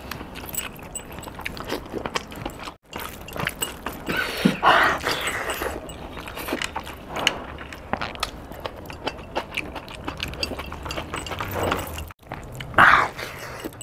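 Close-up eating sounds: wet chewing, lip smacking and small clicks as a chicken leg piece in green masala is bitten and eaten by hand. Two louder wet sounds come about five seconds in and near the end, and the sound drops out briefly twice.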